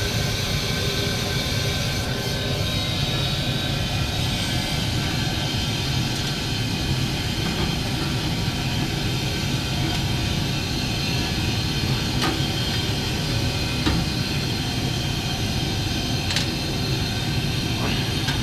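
Ducane gas furnace running after a restart: the lit burners and blower fan make a steady hum with a rush of air, and a few faint clicks sound in the second half.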